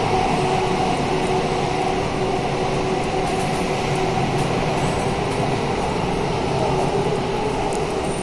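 Thomson-East Coast Line CT251 metro train running at speed through a tunnel, heard from inside the front car: a steady rumble of wheels on rail with a faint even hum.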